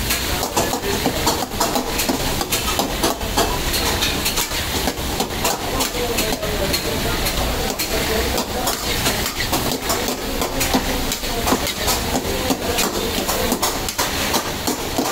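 Mutton karahi sizzling in a metal wok, with a slotted metal ladle scraping and clicking against the pan again and again as it is stirred, over the steady low noise of the gas burner.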